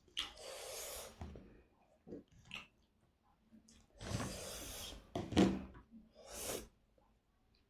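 A person eating, breathing out in three audible noisy breaths, with small mouth and chewing noises in between.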